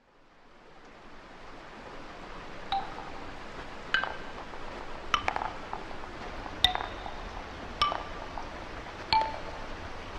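Wooden bars of a giant forest xylophone sounding single short notes, six of them about a second and a quarter apart, starting a few seconds in, over a steady hiss that fades in at the start.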